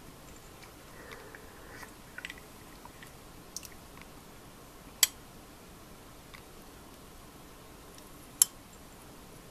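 A glass with ice handled at the table: a few faint soft clicks, then two sharp clinks of glass, one about five seconds in and one near the end.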